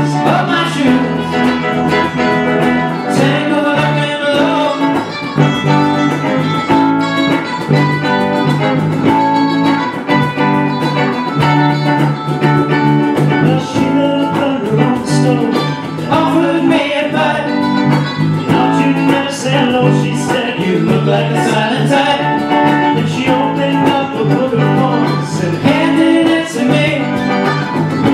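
A small live band playing a folk song on electric guitars, mandolin and cajón, with a steady repeating bass line.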